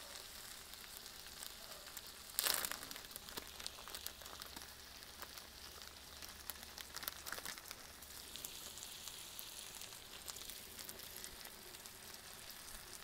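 Barbecue-sauced chicken thighs sizzling faintly on a Blackstone flat-top griddle, with a short crinkle of plastic cheese packaging about two and a half seconds in.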